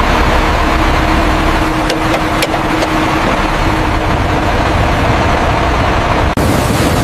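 Heavy engine or machinery running steadily, a loud low rumble with a steady hum, briefly interrupted by a cut about six seconds in.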